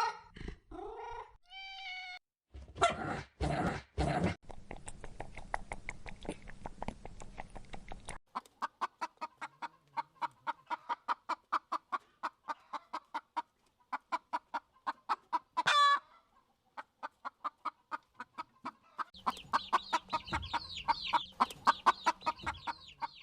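Hen clucking over and over in short, rapid clucks, several a second, for most of the time, with one rising squawk part-way through. Near the start there are a few brief, louder animal calls and thumps.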